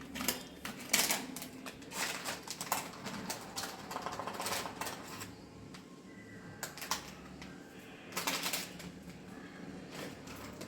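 Spoon and kitchen containers handled while spices are measured in: irregular light clicks, taps and clinks, coming in a few short clusters.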